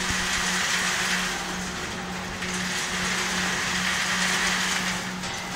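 Popcorn caramelizer machinery running with a steady hum and an even hiss.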